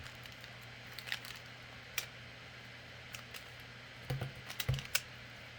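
Plastic clicks of a Pyraminx puzzle being twisted by hand: a few scattered clicks, then a quicker run of clicks and dull knocks about four seconds in.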